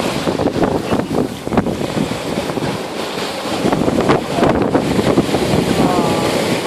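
Small waves washing and splashing in the shallows, with wind buffeting the microphone.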